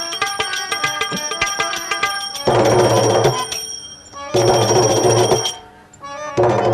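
Instrumental prelude to a live Gujarati santvani bhajan: quickly repeated, ringing tremolo notes, then three loud swells of fuller sound, each about a second long, with short dips between them.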